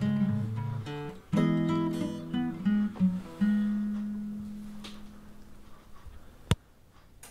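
Acoustic guitar strumming the song's closing chords. The last chord, struck about three and a half seconds in, rings out and slowly fades. A single sharp click near the end.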